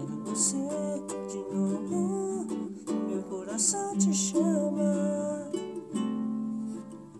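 Seizi guitalele, a small six-string nylon-strung guitar, strummed and plucked through the song's closing chords, with a voice singing along over it.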